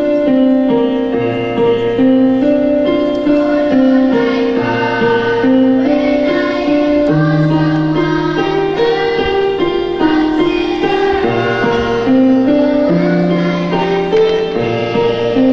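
Children's choir singing with electronic keyboard accompaniment: held vocal lines over sustained low bass notes that change every couple of seconds.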